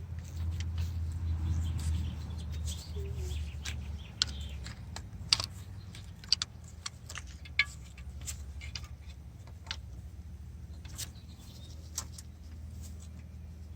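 Scattered light clicks and taps of hand tools on metal engine parts, at irregular intervals over a steady low hum.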